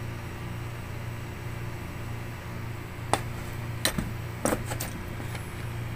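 A steady low background hum, with a few short clicks and knocks between about three and five seconds in as the brass oxy-acetylene cutting torch is picked up and handled on the table.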